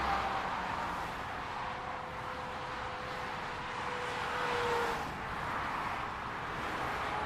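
Highway traffic: a steady rush of tyre and engine noise, swelling and fading as vehicles pass. A passing vehicle's steady tone drops slightly in pitch about five seconds in.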